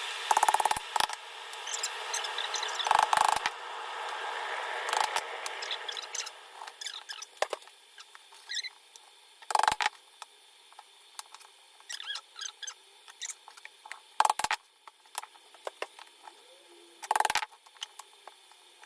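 Raw whole chicken being cut into pieces: a handful of sharp knocks of the blade hitting the chopping board, several seconds apart, with quieter small clicks and handling noises between.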